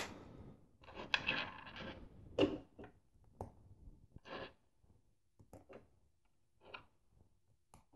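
LEGO plastic pieces being handled and sorted on a tabletop: a short spell of light rattling about a second in, then scattered single clicks of plastic on plastic.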